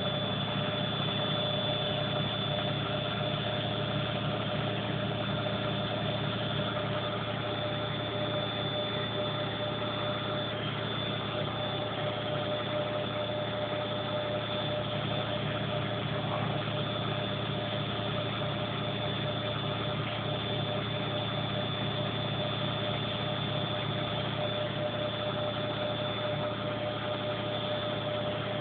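Front-loading washing machine on its final spin, the drum turning steadily at high speed, around 900 rpm. A steady motor whine over a low hum, holding constant throughout.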